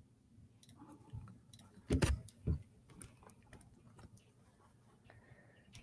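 Quiet room sound with scattered faint clicks and two dull thumps about two seconds in, half a second apart.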